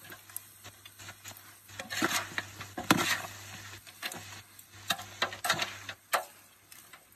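Metal ladle stirring chopped duck and greens in a large aluminium pot, with irregular scrapes and clinks against the pot's side.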